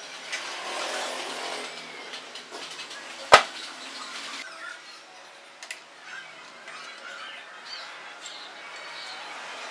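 Handling noise from a greasy steel gear and shaft turned in the hands, then one sharp metal clack about three seconds in as the gear and shaft are set down on the workbench. A few lighter clicks follow.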